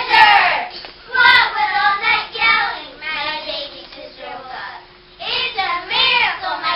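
A group of children chanting a verse in unison, in loud phrases with a quieter stretch midway.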